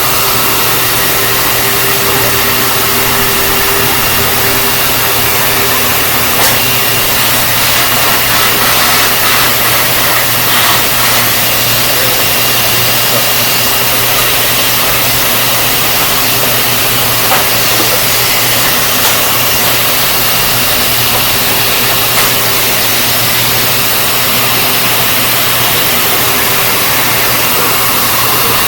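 Hoover Empower upright vacuum cleaner running steadily: a loud, even motor whine over rushing air, its brush roll spinning.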